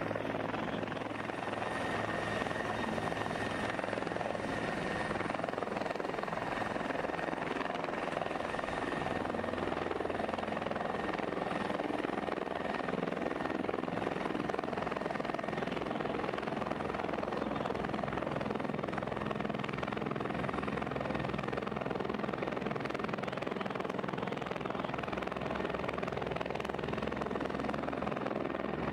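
A helicopter in flight, with a steady rotor and engine drone.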